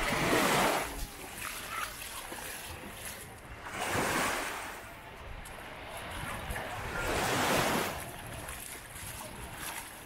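Sea waves breaking and washing up the beach, three swells about three and a half seconds apart.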